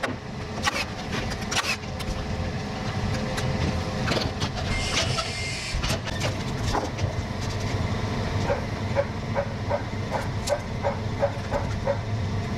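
A steady low engine rumble with scattered sharp knocks and clicks of work on the timber framing; from about two-thirds of the way in comes a run of short repeated higher notes, about two a second.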